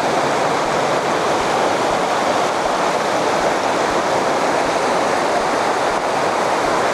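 A river's current rushing steadily, a dense even hiss of running water.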